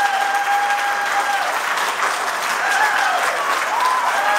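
Audience applauding steadily, with a long held high-pitched call over the clapping at the start and shorter rising-and-falling calls from the crowd a couple of seconds in.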